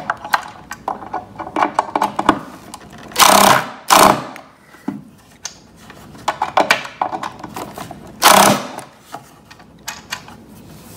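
Cordless drill driving a screw into a wooden stool's seat in short bursts, three of them loud, with smaller clicks and knocks of the screw and tool being handled in between.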